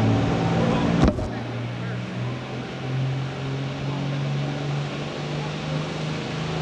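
John Deere 6030 pro stock pulling tractor's engine running hard under load on a pull, its pitch climbing slowly. A sharp crack sounds about a second in.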